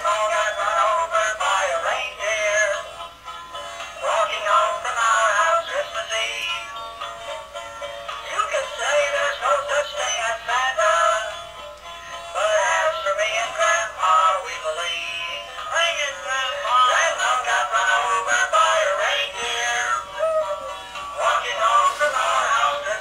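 Animated singing Christmas plush toy playing a Christmas song in a synthetic singing voice through a small, tinny speaker with no bass, in phrases separated by short breaks.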